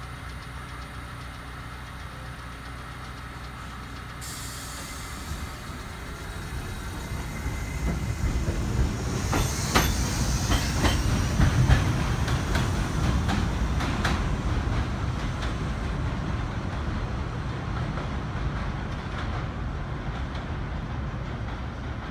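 An R68 subway train pulls out of an elevated station and runs away down the track. A hiss starts about four seconds in. The rumble of the train then builds to its loudest in the middle, with repeated clacks of wheels over rail joints, and slowly fades as it recedes.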